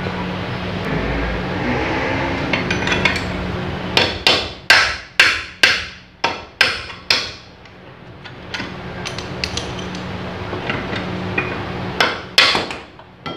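Hammer driving a chisel to cut out a seal from the back in a gondola hoist: a run of about eight sharp strikes, roughly two a second, each ringing briefly, a few light taps, then two more strikes near the end.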